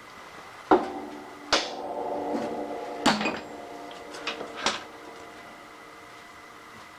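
A hammer tapping a metal workpiece over to bring it square: about five sharp taps, several leaving a lingering metallic ring.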